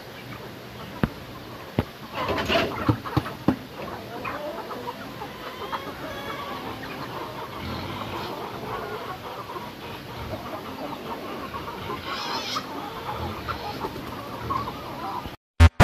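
A flock of chickens and roosters clucking while being fed, with a few sharp taps and clusters of louder calls. Near the end the sound cuts off and loud electronic intro music begins.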